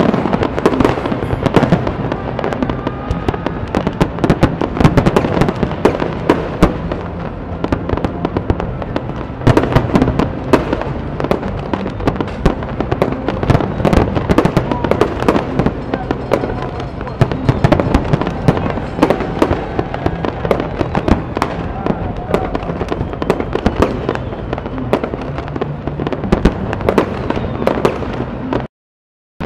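Fireworks display: a dense, continuous barrage of aerial shell bangs and crackling from many bursts going off in quick succession. The sound cuts out completely for under a second near the end.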